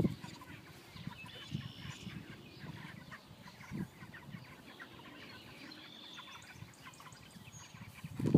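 Broiler chickens clucking and cheeping softly, with a few faint low thumps, the clearest nearly four seconds in.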